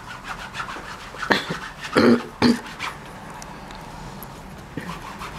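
Rag rubbed and dabbed across an oil-painted canvas in quick scratchy strokes, with three short, loud sounds close together in the middle.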